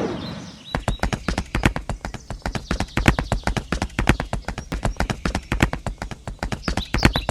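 A rapid, fairly even run of sharp clicks or taps, about eight a second, starting just under a second in.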